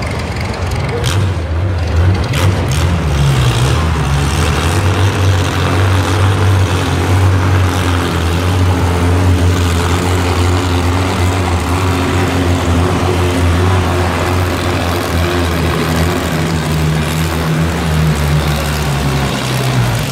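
Farm tractor engine running hard under load as it pulls a weight-transfer sled in a stock-class tractor pull, with a steady low engine note. The engine eases off just before the end as the pull finishes.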